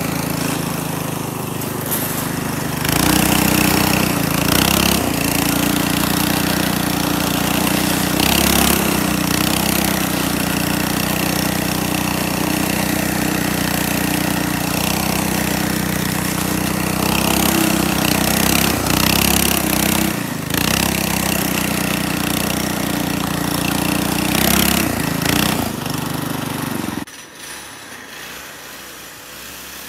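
Single-cylinder 212cc ProPoint 7.5 hp engine on a homemade track sled running hard under load through deep snow. It revs up about three seconds in and holds a steady, slightly wavering pitch, then drops abruptly to a much lower level near the end.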